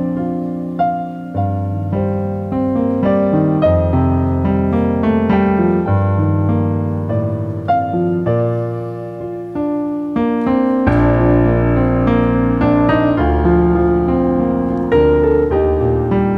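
Piano playing a calm piece of held chords over a moving bass line, a deeper bass note coming in about eleven seconds in.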